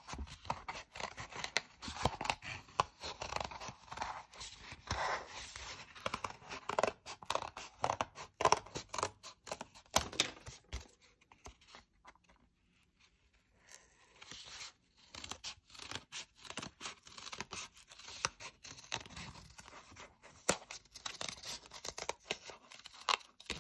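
Scissors snipping through a folded sheet of paper in a run of short cuts, pausing briefly a little past the middle before cutting on.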